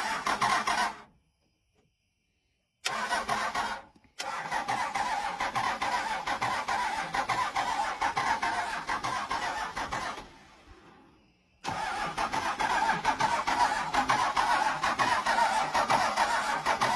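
Old diesel semi-truck engine being cranked over by its starter without firing, a fast rhythmic churning that stops and restarts several times. It is a failed attempt to start the engine.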